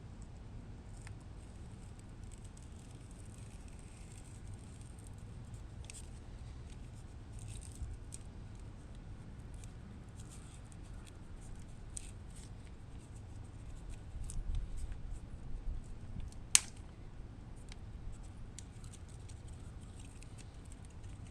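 Faint work noises as self-adhesive strips are cut and stuck onto a dirt bike's frame rails: scattered small clicks and rustles, with a low handling rumble and then one sharp click about two-thirds of the way through.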